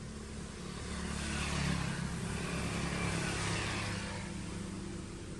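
A motor vehicle passing by: its engine swells from about a second in, peaks, and fades away near the end.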